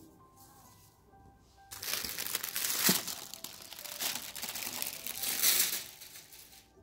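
Thin wrapping paper being pulled off a parcel's contents and crumpled, a loud dense crinkling that starts about two seconds in and runs for some four seconds. Soft background music plays before it starts.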